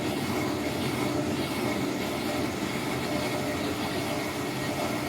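Whirlpool top-load washer spinning its drum on the drain cycle: a steady rumbling hum that the repairman considers typical of a washer with worn bearings.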